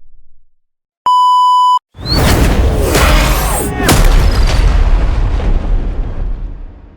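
A short steady beep, then about two seconds in a cinematic hit sound effect: a loud impact with a deep rumbling boom and gliding tones, struck again about two seconds later, then fading out slowly.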